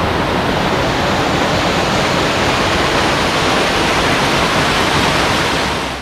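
Creek water rushing over rock at the top of a small waterfall, a loud steady rush close to the microphone that fades near the end.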